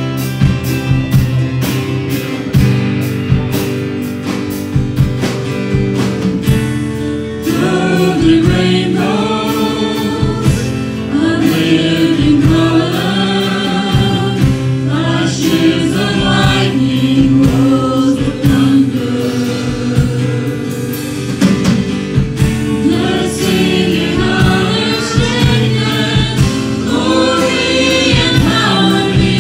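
Live gospel worship music: a band plays with a steady drum beat, and a praise team of several singers comes in together about seven seconds in and keeps singing.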